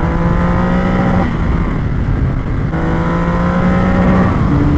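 Triumph Rocket 3 R's 2.5-litre three-cylinder engine pulling hard under acceleration: the engine note climbs, breaks off about a second in at a gear change, climbs again, and drops to a lower note at the next shift near the end.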